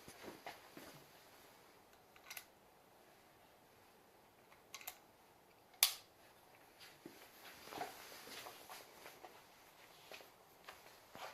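Scattered light metallic clicks and snaps of a double-barrelled rolling-block pistol being handled: cartridges going in, the blocks closing and the hammers being cocked. The sharpest click comes about six seconds in.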